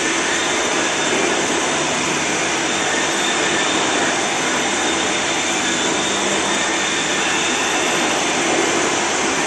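Vertical milling machine running steadily, its end mill cutting an aluminium extrusion die blank while flood coolant sprays onto the cut: an even, continuous whir and hiss with a faint high steady whine.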